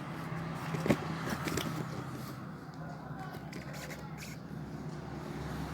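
Handling noises: light rustling and a few small clicks, one sharper click about a second in, over a steady low hum.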